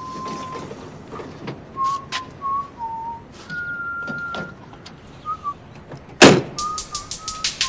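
A person whistling a slow tune in single held notes that step up and down in pitch. About six seconds in comes a loud thud, followed by a rapid run of ticks.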